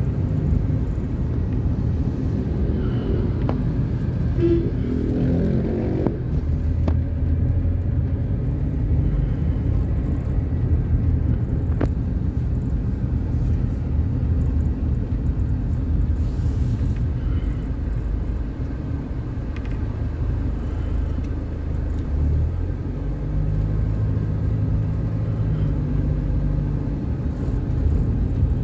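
Car engine and road noise heard from inside the moving car's cabin: a steady low rumble, the engine pitch rising and falling with the driving. About five seconds in, a brief rising pitched sound rides over it.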